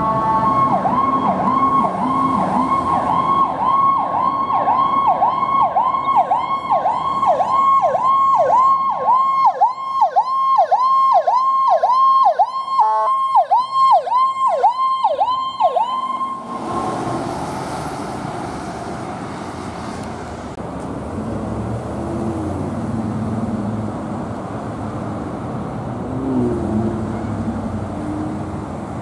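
Emergency vehicle's electronic siren on a fast yelp, dipping and returning about twice a second, cuts off suddenly about sixteen seconds in. After that, the steady low rumble of idling emergency vehicles and traffic.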